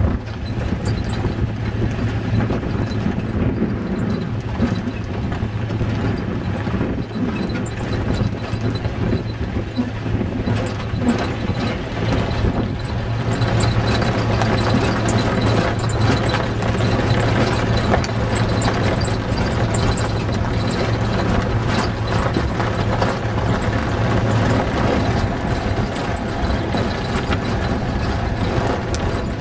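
Off-road vehicle driving over a rough desert dirt track: the engine runs with a steady hum under constant rattling and knocking from the bumpy ground.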